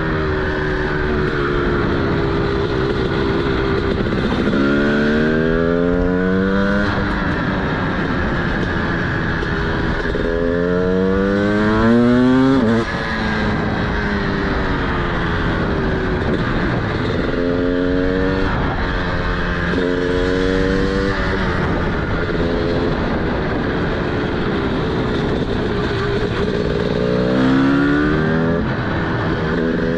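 TM SMR 300 supermoto's single-cylinder two-stroke engine with a DBR exhaust, riding under load. The engine pitch climbs in four pulls and drops back between them; the second pull is the loudest and cuts off sharply.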